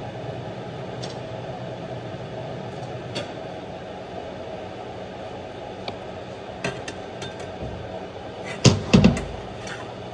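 Steady low kitchen background hum with a few faint clicks, then a short burst of loud knocks and clatter about nine seconds in as a plate is brought back and kitchenware is handled at the stove.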